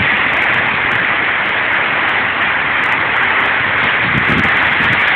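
Heavy hail and rain pelting down during a hailstorm: a dense, steady hiss.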